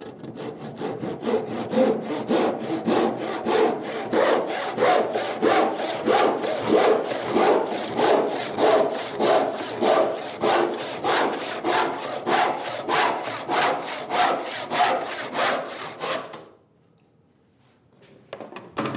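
A crosscut handsaw cutting across a softwood board in steady back-and-forth strokes, about two a second. The strokes stop suddenly near the end as the cut goes through, followed by a single short knock.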